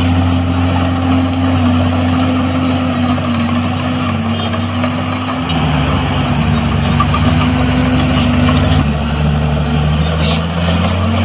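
Diesel engine of a heavy earthmoving machine running steadily; about five seconds in its note drops lower and heavier, as if it is working under load, then returns to the earlier note near the end.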